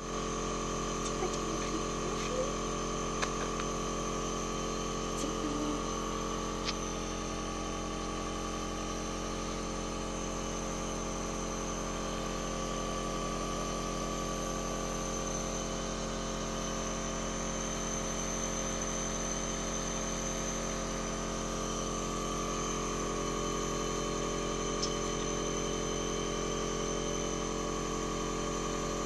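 Compressor nebulizer running with a steady, even hum, pushing air through the nebulizer cup. A few faint clicks in the first several seconds.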